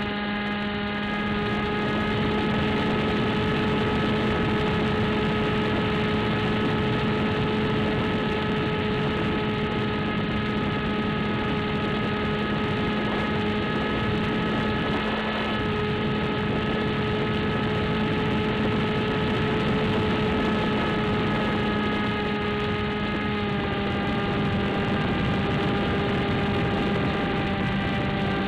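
Electric pusher motor and propeller of an AXN Floater Jet RC foam plane, heard from its own onboard camera: a steady, loud drone in flight, its pitch shifting slightly a couple of times, over a rushing haze of air noise.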